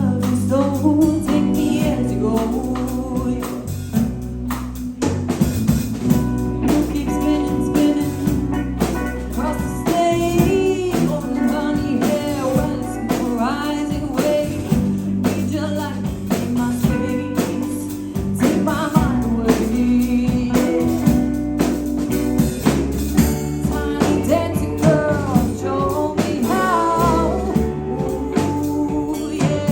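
Live rock band playing, with a woman singing lead over electric guitars, bass guitar and a drum kit.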